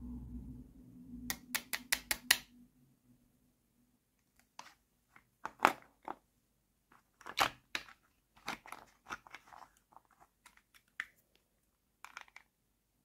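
Hard plastic toy food pieces clicking and knocking as they are handled and set down on a plastic tray. A quick run of about six clicks comes near two seconds in, followed by scattered single taps and knocks.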